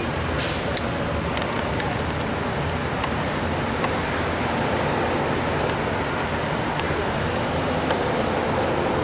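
Road traffic with the low, steady drone of heavy diesel dump trucks driving along the street, and a brief hiss about half a second in.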